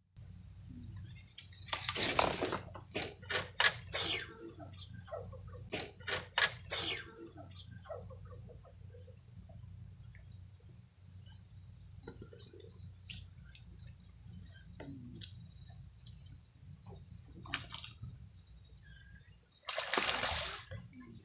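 A steady high insect trill at the waterside, with a flurry of clicks and knocks from fishing gear being handled early on, a few single ticks later, and a short rustling burst near the end.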